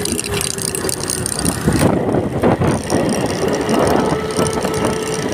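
Motorcycle riding along a road: wind noise buffeting the microphone over the engine's steady tone, which drops away about a second in and comes back near the end.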